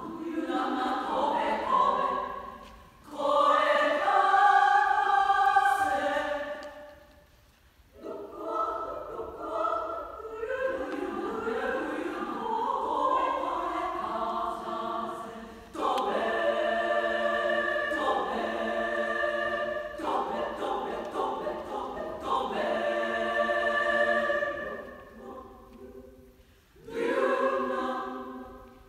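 A women's choir singing, in phrases broken by short pauses about 3 and 8 seconds in and shortly before the end.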